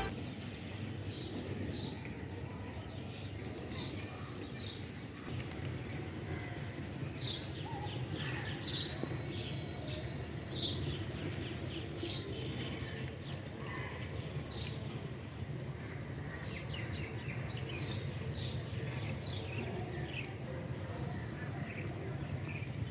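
Birds chirping: short, high, downward-sweeping calls scattered throughout, over a steady low background rumble.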